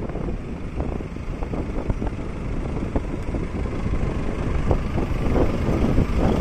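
Wind buffeting the microphone of a moving motorcycle, with a gusty rumble over the engine and road noise.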